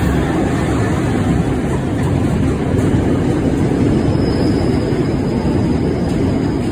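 Freightliner Class 66 diesel locomotive passing at speed, followed by the loud, steady rumble of its container wagons' wheels running over the rails.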